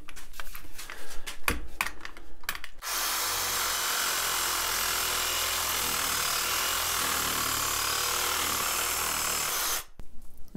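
Handheld power saw cutting through the end of a Mora knife's rubber-over-hard-plastic handle, running steadily for about seven seconds and stopping suddenly near the end; the cut end holds no tang. Knocks and clicks of handling come before the saw starts.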